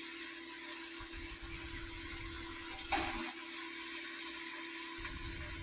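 Chicken frying in a pan, a steady sizzle over a low steady hum, with one brief knock about three seconds in.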